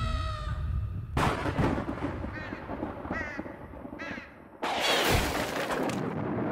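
Cartoon crow cawing three times, with a sudden loud boom about a second in and another near the middle that sets a flock of birds scattering. At the start, a cartoon character's scream trails off with falling pitch.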